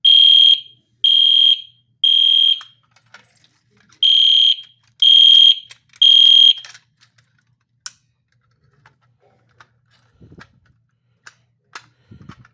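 Edwards Genesis ADTG1RF-HDVM fire alarm horn sounding in the temporal-three pattern: two groups of three loud, high-pitched beeps about a second apart, with a pause between the groups. It then stops, leaving a few faint clicks and two soft thumps near the end.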